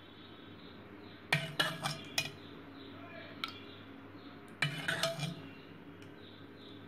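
Metal ladle clinking and scraping against an aluminium pot while sago porridge is ladled out into a bowl: two short clusters of knocks, about a second in and again near five seconds.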